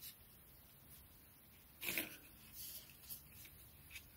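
Faint rustle of hands working waxed polyester cord, the thread rubbing against itself and the fingers as a knot is tied, with one short louder swish about two seconds in.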